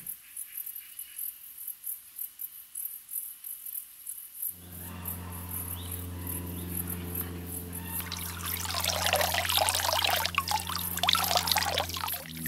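Water splashing and pouring off an underwater camera rig as it is lifted out of a stream, loudest from about eight seconds in. Behind it are steady high insect chirring and a steady low hum that begins about four seconds in.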